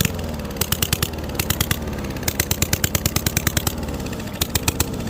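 Straight-piped single-cylinder lawn mower engine, its muffler and airbox removed, running unevenly with frequent sharp pops and crackles from the open exhaust.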